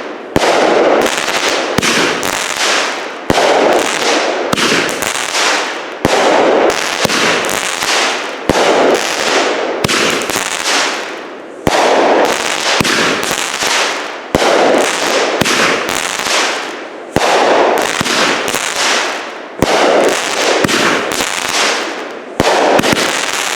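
A Hootenanny 200-gram fireworks repeater cake firing a steady string of shots, one every one to two seconds. Each is a sharp report followed by a noisy tail that fades before the next shot.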